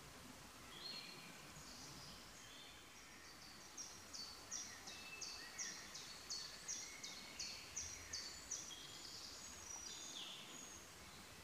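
Faint outdoor birdsong. One bird repeats a short high note about three times a second for roughly five seconds, with other birds chirping more faintly around it.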